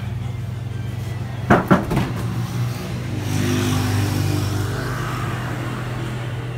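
Steady low hum of a running three-door display refrigerator, its compressor and fans working to pull the temperature down from 12 degrees. Two sharp knocks come about one and a half seconds in, and a louder, hissier stretch follows midway.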